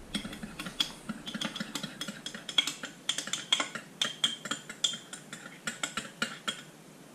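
Spoon stirring in a ceramic mug, clinking against its sides several times a second in an uneven rhythm, stopping shortly before the end.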